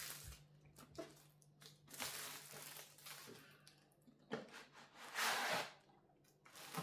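Packaging being handled and opened during an unboxing: a couple of bursts of rustling and crinkling, about two seconds in and again past the five-second mark, with a few scattered clicks and knocks over a faint steady hum.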